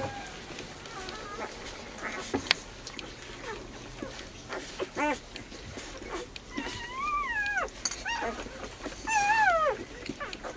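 Kangal dog whimpering: a few short high whines, then longer whines in the second half that rise and fall in pitch.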